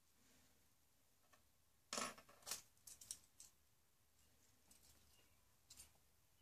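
Short clicks and scrapes of hair being handled and pinned up by hand with a small metal hair pin, a quick cluster about two seconds in and a brief pair near the end, otherwise near silence.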